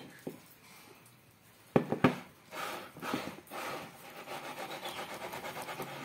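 A glass bowl knocking twice on a tabletop, then rubbing sounds and a quick, even rhythmic rubbing as damp canary egg food (farinhada) is shaken round in the bowl.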